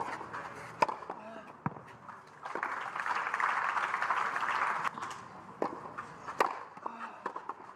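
Tennis crowd applauding for about two and a half seconds after a point, with a few sharp knocks, such as tennis ball hits or bounces, before and after.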